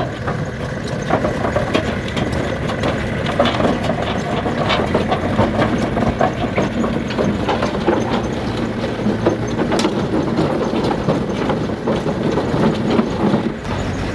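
Diesel engine of a piece of heavy equipment running steadily as it is driven up onto a truck bed, with frequent irregular metal clanks and knocks.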